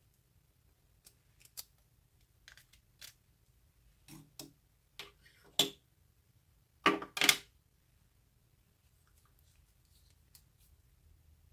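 Hands working slime: scattered sticky clicks and small pops, with the loudest squishes about five and a half and seven seconds in.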